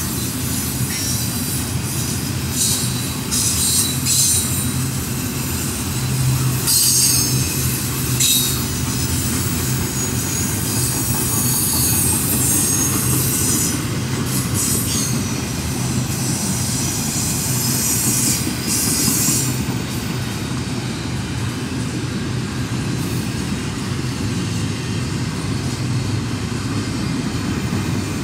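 Double-stack container cars of a CSX freight train rolling past: a steady rumble of wheels on rail, with intermittent high-pitched wheel squeal through the first two-thirds that stops about twenty seconds in.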